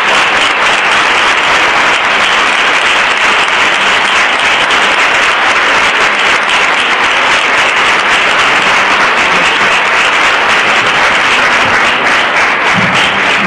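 Steady, dense applause from an audience, with the people on stage clapping along, closing a thank-you speech.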